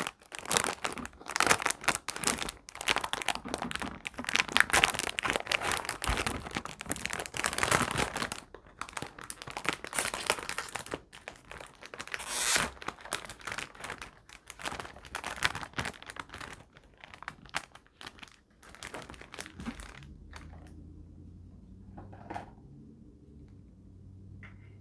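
Plastic packaging of a DIY candy kit crinkling and tearing as it is handled and opened, dense for the first several seconds, then in sparser bursts that die away about twenty seconds in, leaving a faint low hum and a couple of small clicks.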